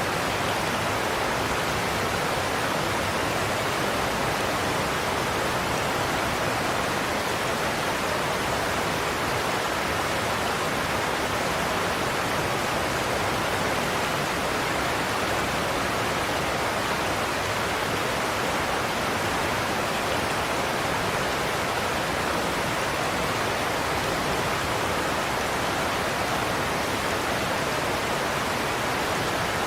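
Godafoss waterfall: a heavy cascade pouring over a cliff in a steady, unbroken roar that never rises or falls.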